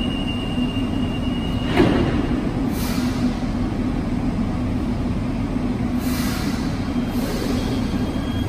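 CAF metro train standing at the platform with a steady low hum; a steady high tone stops as the doors shut with a thump about two seconds in. Short hisses of air follow, and near the end a rising whine sets in as the train begins to pull away.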